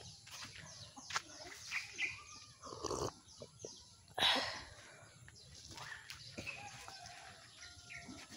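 Faint, scattered farmyard animal calls among clicks and knocks, with a short rush of noise about four seconds in.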